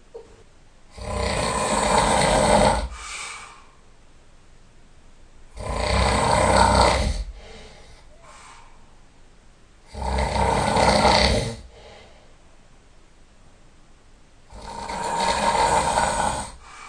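A person snoring loudly: four long snores about four to five seconds apart, each followed by a shorter, fainter sound.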